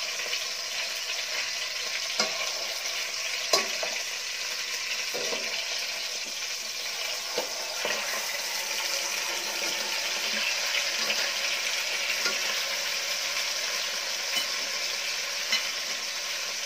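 A whole chicken sizzling steadily as it sears in hot oil in a metal pot, with a few sharp knocks of spatula and tongs against the pot as the bird is turned over.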